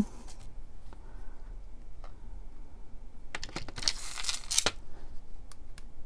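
Small clicks and ticks of jewelry pliers and jump rings being handled, with a brief rustle about four seconds in.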